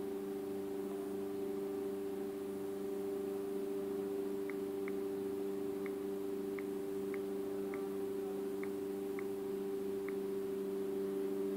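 Steady low electrical hum, with about nine faint short key clicks from the Samsung Galaxy Grand Neo's on-screen keyboard, irregularly spaced half a second to a second apart, as a password is typed.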